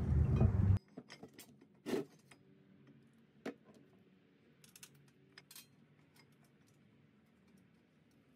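A brief handling rustle that cuts off abruptly under a second in, then a few faint, sparse metallic clinks as a brake caliper is handled and set back over the rotor.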